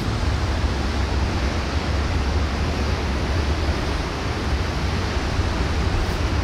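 Strong wind blowing across the microphone: a steady low rumble with a rushing hiss over it, without a break.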